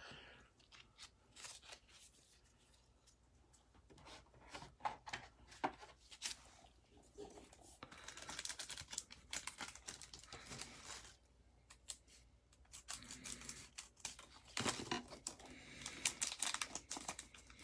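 Plastic cellophane wrapper of a Panini Mosaic basketball card pack crinkling and tearing as gloved hands open it, in two faint stretches of rustling about 8 and 15 seconds in.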